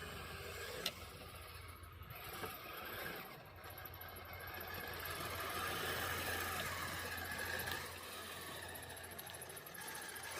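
Kyosho Blizzard RC snowcat driving on metal tracks: a steady motor whine and track rattle, with a sharp tick about a second in and a higher whine building in the middle, then easing off.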